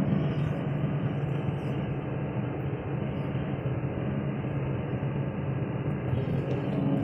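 Excavator diesel engine running steadily under load as the boom and bucket move, heard from inside the cab.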